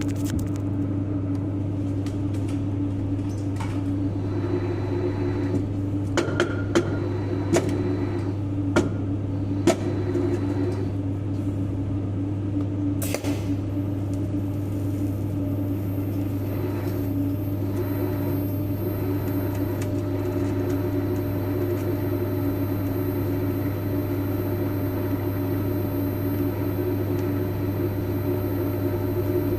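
TIG welding: a steady electrical buzz from the welding arc and machine, with a few sharp clicks in the first ten seconds and a brief crackle about thirteen seconds in.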